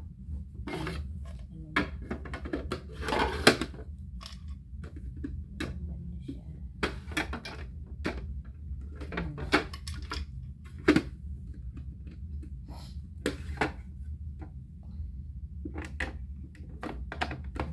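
Scattered clicks and light knocks of small items being handled and set down, over a steady low hum.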